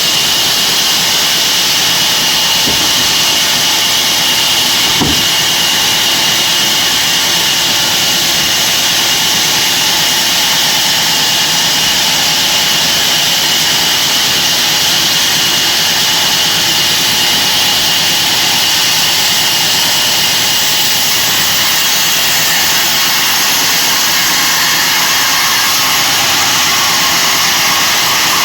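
Sawmill bandsaw running, a loud, steady high-pitched noise with a thin whine in the first half. A single faint knock about five seconds in.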